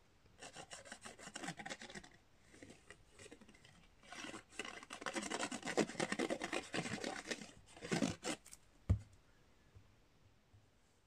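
Plastic applicator tip of a liquid glue bottle scrubbing back and forth over cardstock in quick scratchy strokes, in two spells, as glue is spread across the paper. A single soft thump about nine seconds in.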